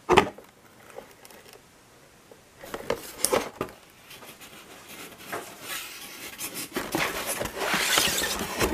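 Stiff clear plastic clamshell packages being handled in a cardboard box: a sharp click at the start, a few knocks about three seconds in, then crinkling and rubbing of plastic that grows louder toward the end.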